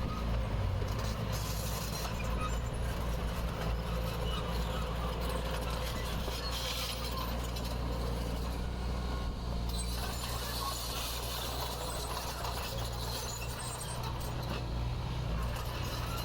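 Bulldozer's diesel engine running steadily, with metallic clinking and scraping like crawler tracks working over gravel.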